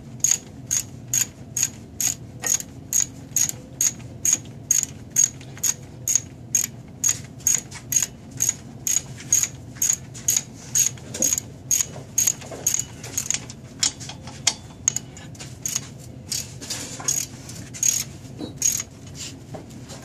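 Ratchet wrench being worked back and forth on a bolt at the car's front suspension. It makes a steady run of sharp metallic clicks, about two or three a second, that spaces out in the last few seconds.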